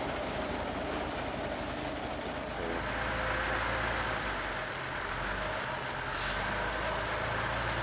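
Water tanker truck's engine running steadily at idle, with a steady rush of water pouring from its wide delivery hose into a drum.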